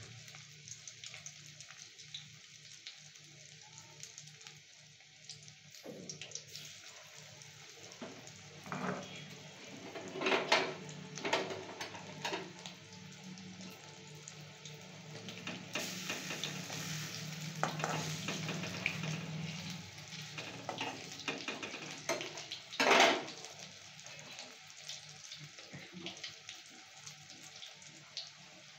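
Coconut fritters sizzling and crackling in shallow oil in a steel wok. A metal spatula knocks and scrapes against the pan several times around the middle, with one loudest knock later on.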